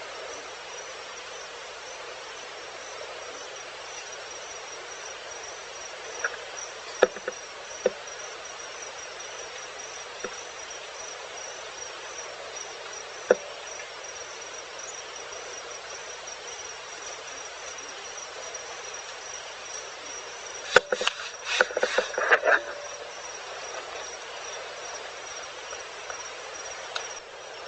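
Insects, likely crickets, chirping in a steady high-pitched trill over an evening hiss. A few sharp clicks break in, with a quick cluster of clicks and knocks about three-quarters of the way in.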